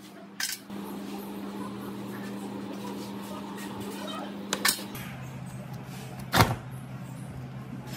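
Sharp metal clicks and knocks as an old angle grinder's housing and a steel screwdriver are handled on a steel checker-plate bench: one about half a second in, a double knock near the middle, and the loudest about six seconds in. Under them is a steady low hum whose pitch drops about five seconds in.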